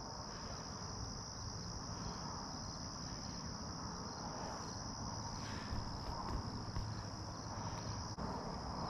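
Steady, unbroken high-pitched chorus of crickets at dusk, over a faint low rumble.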